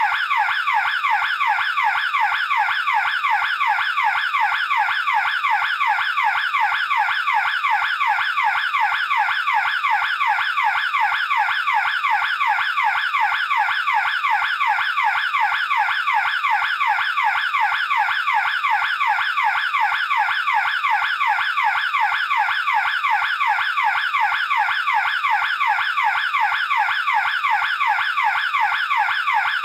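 Burglar alarm siren sounding continuously: a loud, rapid sweeping wail that repeats evenly several times a second without a break.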